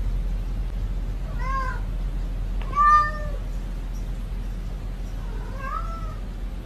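A domestic cat meowing three times, the middle meow about halfway through the loudest, over a steady low hum.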